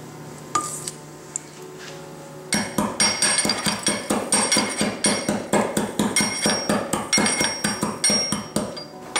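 Stainless steel pestle pounding roasted fenugreek seeds in a steel mortar: rapid metallic strikes, about four a second, each with a bright ring, starting about two and a half seconds in.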